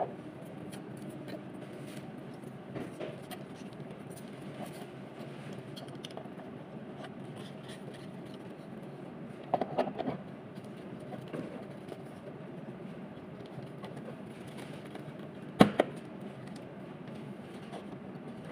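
Steady room hum with handling noises: a few soft knocks and clatters from things being moved about at a desk, a short cluster about halfway through, and one sharp knock about two-thirds of the way in.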